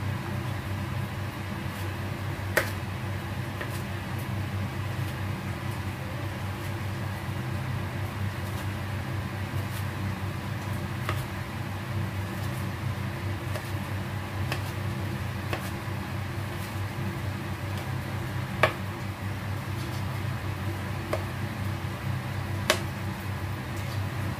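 Chef's knife knocking against a plastic cutting board while dicing tomato: a scattering of short, sharp knocks, the loudest about two and a half seconds in and twice in the last six seconds, over a steady low hum.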